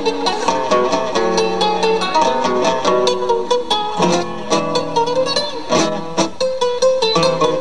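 Acoustic guitar playing a tango, a quick run of plucked melody notes over bass notes.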